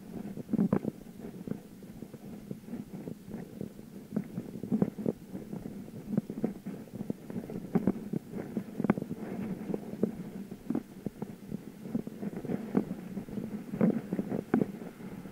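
Bicycle being ridden, heard through a camera mounted on it: a low rumble with many irregular knocks and rattles, several a second, as the bike jolts over the road surface.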